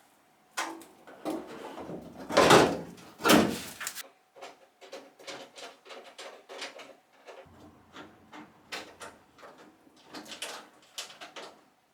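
Knocks and clunks of a steel car wing being handled and loosely fitted to the body, with two louder scraping clunks about two and a half and three and a half seconds in, followed by a string of lighter clicks and taps.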